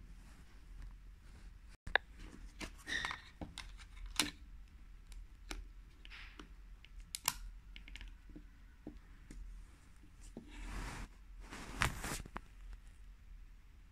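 Small plastic clicks and scrapes from handling a Nokia 3100 mobile phone as its battery and back cover are fitted and pressed into place: a string of sharp clicks with a few longer rubbing scrapes.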